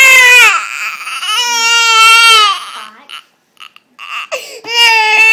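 A baby crying in three long wails with short pauses between, frightened by a loud sneeze just before.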